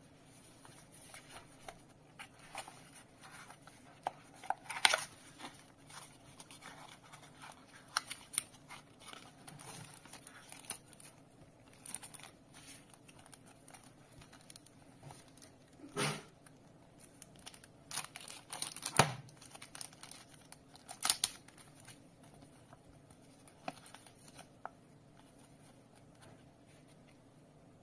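Hands unboxing a small cardboard product box: cardboard sliding and scraping, paper and a plastic bag rustling, with scattered sharper clicks and scrapes. It quietens over the last few seconds.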